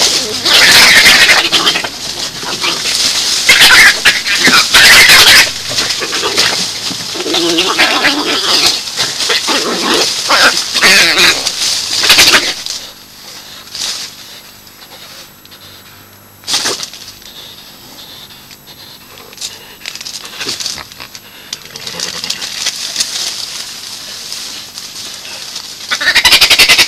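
Badgers calling loudly in a fight, a dense run of squeals and screams for about the first twelve seconds, then quieter with a few short cries, flaring up loud again near the end.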